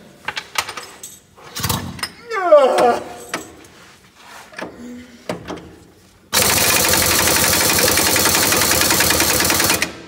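A few scattered metal clanks and knocks, then about six seconds in an impact wrench hammers rapidly and steadily on a bolt of a semi truck's drive shaft for about three and a half seconds and stops.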